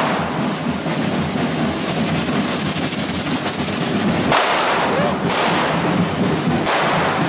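Correfoc fireworks: a continuous loud fizzing and crackling of spark-spraying fireworks, with a sudden louder burst about four seconds in and another near the end.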